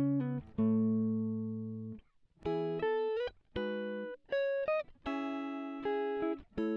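Background guitar music: plucked chords, each struck sharply and left to ring and fade, with a quicker run of notes in the middle.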